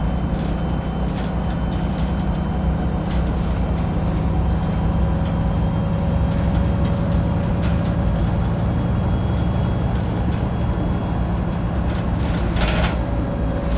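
Wright Pulsar 2 single-deck bus heard from inside the cabin while under way: a steady low engine drone with a thin whine over it and scattered interior rattles. A brief hiss of air comes near the end.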